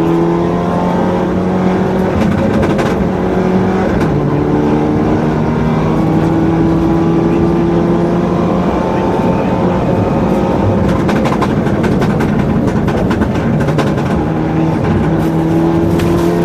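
Mitsubishi Lancer Evo 7's turbocharged 2.0-litre four-cylinder engine accelerating, heard from inside the rally car's cabin: its pitch drops at a gearshift about four seconds in, then climbs slowly for the rest of the run. Over the last few seconds a quick run of clicks and knocks sits over the engine note.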